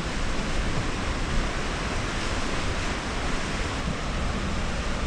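Mountain creek rushing through a narrow rock gorge: a steady, even wash of whitewater.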